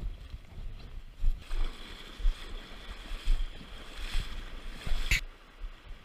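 Legs in waders wading through a shallow, rocky creek: water splashing and churning around them at each step, about one step a second, over the steady rush of the stream. A sharp click sounds near the end, after which only the stream's quieter rush remains.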